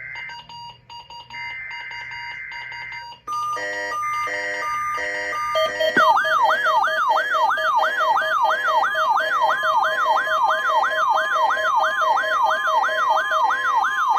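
NOAA Weather Radio SAME header data bursts for station KEC56's weekly test: a harsh two-tone digital warble that cuts off near the start, then returns at about 1.3 s and stops at about 3 s. After a short pulsed beeping, an electronic siren-like alarm starts about six seconds in, with quick repeating falling sweeps about three times a second.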